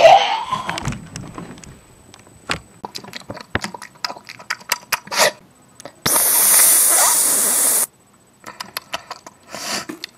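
Scattered small clicks and taps, then a loud steady hiss of under two seconds that starts and stops abruptly, then more clicks.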